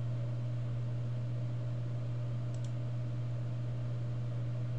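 Steady low hum, with a faint quick double click, like a computer mouse button, about two and a half seconds in.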